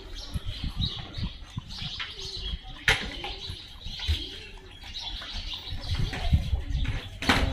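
Pigeons cooing in short low arching calls, with small birds chirping. A sharp click about three seconds in and a louder knock near the end.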